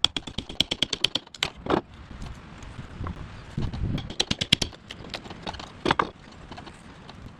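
Steel pry bar working leftover pallet board pieces off a stringer. There are two bursts of rapid clicking and rattling, about a second each, one at the start and one about four seconds in, with single sharp knocks in between.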